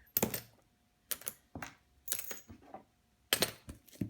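Metal padlocks and lock cylinders clacking and knocking together as they are dropped and packed back into a box: about six sharp knocks at irregular intervals.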